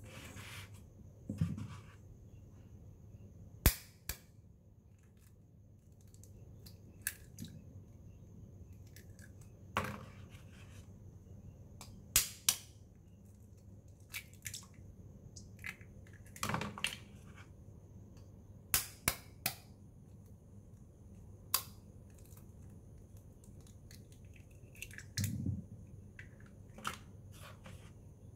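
Raw eggs cracked one by one against the handle of a metal whisk over a stainless steel bowl: sharp taps and shell cracks, often two or three close together, every few seconds, with a couple of soft low thumps in between.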